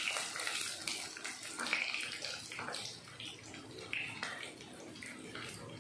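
Mustard seeds and split white urad dal sizzling and spluttering in hot oil, a steady crackle of many small pops that gradually fades, while a wooden spatula stirs them in the pan. This is the tempering (tadka) stage, with the mustard seeds popping in the oil.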